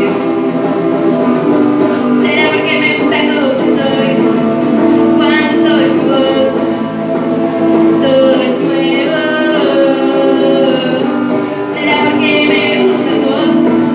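A live band playing a song, with singing over the instruments.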